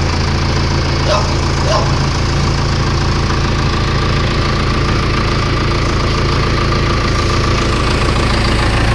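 Motorstar 50 kVA diesel generator set's engine running steadily, with two brief high chirps a little over a second in.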